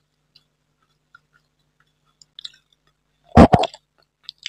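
Close-miked eating mouth sounds: faint wet lip smacks and mouth clicks, then a sudden loud burst of two or three low thuds about three and a half seconds in.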